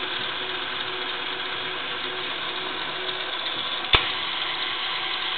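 Mid-1960s Hardinge HLV-H toolroom lathe running with a steady mechanical whir, with one sharp click about four seconds in as a lever on the headstock is thrown.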